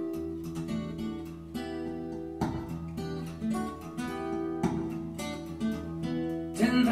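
An acoustic guitar passage from a recorded song, played back over hi-fi loudspeakers driven by a Marantz amplifier. Plucked notes ring on, with strummed chords about two and a half and about five seconds in. A singing voice comes in at the very end.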